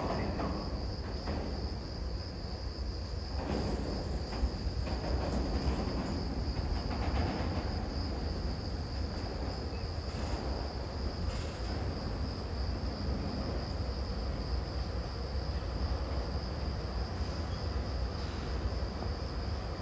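Crickets trilling steadily, one continuous high-pitched note, over a constant low rumble.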